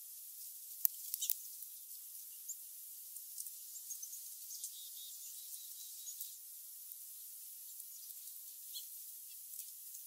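A steady high-pitched hiss with scattered sharp ticks, the loudest a cluster about a second in, and a few faint high chirps from small birds.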